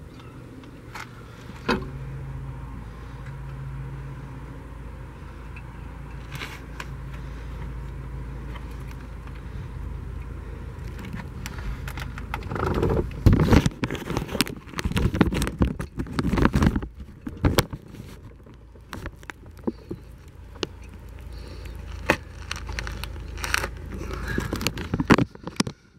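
Metal clinking and rattling of bolts and hand tools as a new water pump is bolted onto a boat's V8 engine, with bursts of louder clatter about halfway through and again near the end, over a steady low hum.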